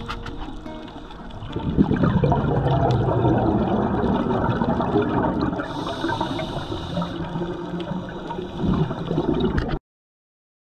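Underwater bubbling and rushing of water, typical of a scuba diver's exhaled bubbles heard on an underwater camera. It swells about a second and a half in, surges again near the end and then cuts off suddenly.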